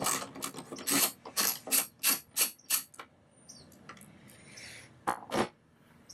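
Socket ratchet wrench clicking as it turns a bolt with a 10mm socket, a quick run of clicks that stops about three seconds in, then a couple more clicks shortly before the end.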